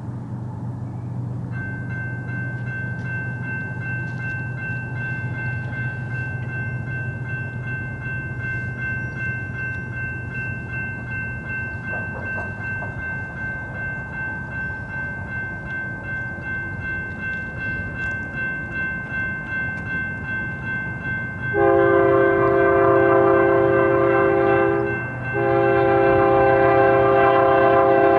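A grade-crossing warning bell rings steadily from about a second and a half in, over a low steady hum. About 21 seconds in, the lead BNSF GE ES44AC locomotive's air horn sounds a loud chord in two long blasts for the crossing, the second running on past the end.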